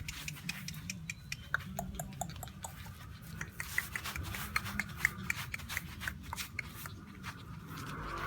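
A small puppy's claws clicking and scratching on a hard floor as it runs and plays: many light, irregular ticks and scrapes over a low steady hum.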